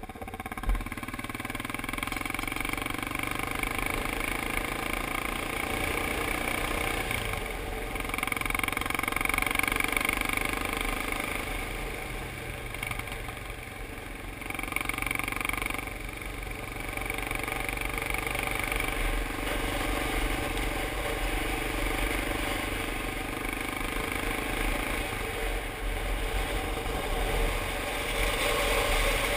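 Motorcycle engine running on the move with wind rush on the microphone. It swells as the bike accelerates and eases off between, several times, with one brief sharp knock about a second in.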